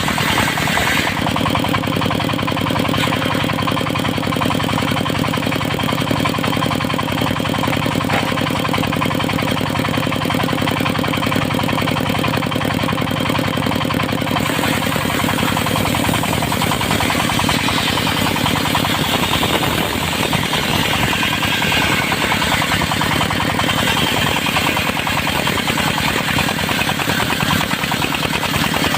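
Engine-driven circular sawmill running steadily while it saws teak, the engine holding a rapid, even beat under the noise of the blade; the higher, noisier part of the sound shifts a few times as the cut goes on.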